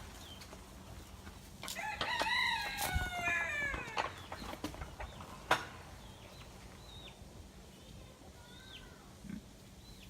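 A rooster crowing once, about two seconds in, its call sliding down in pitch over some two seconds. A few sharp clicks and several short high chirps follow.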